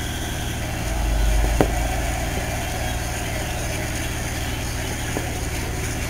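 Heavy diesel paving equipment idling steadily, with a deeper surge about a second in and a single sharp knock shortly after.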